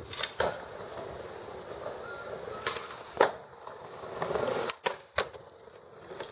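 Skateboard wheels rolling over paved ground, broken by sharp clacks of the board striking the ground: one early, a loud one about three seconds in, and two close together near the end.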